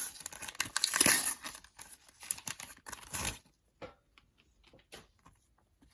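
Panini sticker packets being torn open, their wrappers tearing and crinkling busily for about three seconds, then only a few light clicks and rustles.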